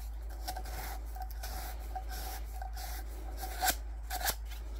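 Sandpaper rubbing back and forth over the freshly sawn end of a 1.5-inch PVC pipe, smoothing the cut edges, with a couple of louder scrapes near the end.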